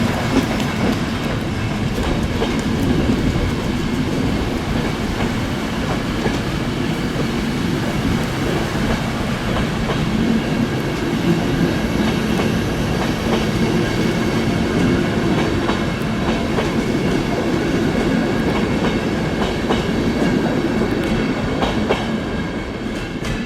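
Historic passenger train, hauled by electric locomotives, departing: a steady rolling noise of wheels and coaches on the rails with clickety-clack from the rail joints, dying down a little near the end.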